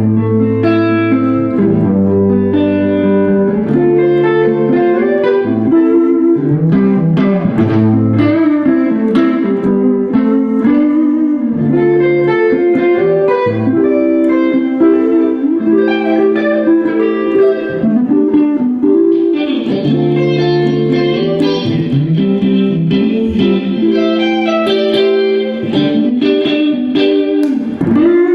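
A guitar playing an instrumental passage of picked notes and chords, without singing.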